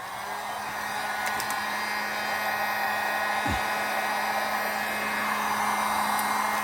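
Heat gun running steadily, its fan blowing with a steady motor hum, as it heats a heat-shrink BOA clamp on a covered hose; it builds up slightly in the first second after being switched on.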